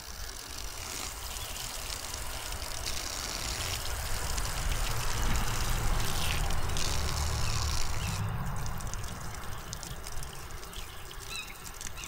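Water running from a faucet in a steady, reduced stream and splashing over a hand held under it, with a steady low rumble underneath.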